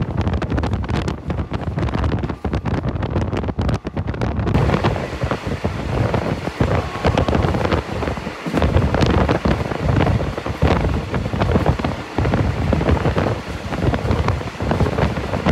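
Wind rushing and buffeting over the microphone on a moving passenger train, mixed with the train's low running rumble. It gets brighter and a little louder about four and a half seconds in.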